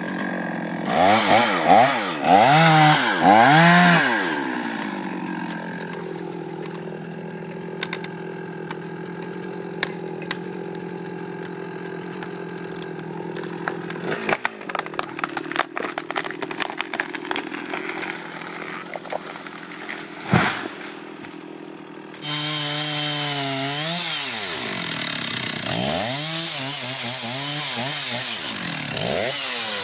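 Two-stroke chainsaw revved up and down several times, then running steadily, as in cutting. Irregular clicks follow, then a sharp crack about twenty seconds in. After an abrupt change, a chainsaw revs up and down again.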